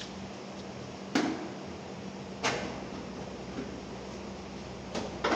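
Sharp knocks of a panel being pushed and worked into place inside a car's front wheel well as the inner fender well is fitted: one about a second in, another a second later, and two close together near the end, over a steady low hum.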